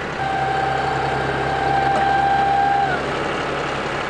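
John Deere utility tractor's diesel engine running under load as its rear blade pushes dirt. A steady high whine rides over the engine for about three seconds and drops away near the end.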